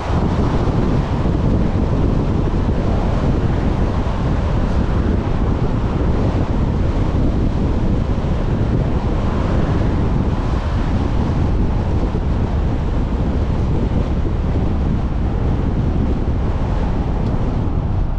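Steady wind noise buffeting the microphone of a camera on a moving vehicle, a deep, even rush with the road noise of driving mixed in beneath it.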